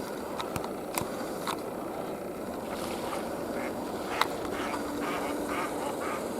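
A large flock of roosting birds calling, with short repeated calls building in the second half. A few sharp ticks come through early on.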